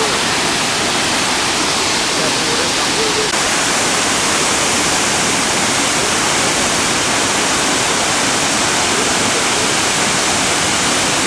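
Vachiratharn Waterfall: a loud, steady rush of falling water.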